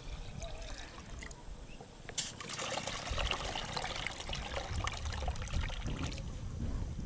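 Water trickling and pouring from a leather well bucket into a metal basin, filling it in an uneven stream.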